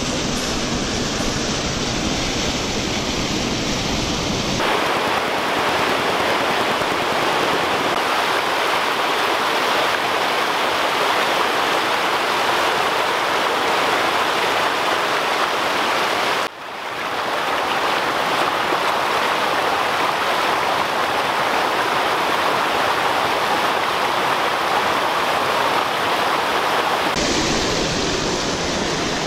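Steady rush of creek water tumbling over boulders in a small waterfall. The sound shifts abruptly a few times, with a momentary dropout just past the middle.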